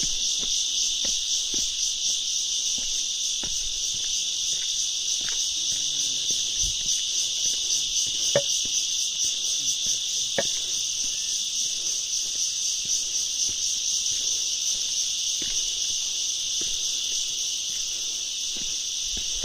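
Steady chorus of forest insects, a high buzz that pulses rapidly and evenly. Scattered light clicks run under it, with two sharper ones about eight and ten seconds in.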